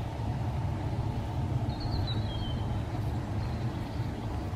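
A steady low rumble, with a short, slightly falling bird chirp about two seconds in.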